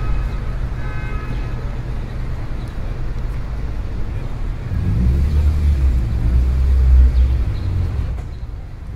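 Low rumble of street traffic, swelling from about halfway in as a vehicle passes and fading near the end.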